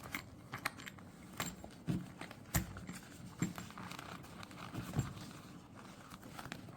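Handling noises as items are packed into a soft-shell tool case: scattered light knocks and clicks, about eight in all, over faint rustling.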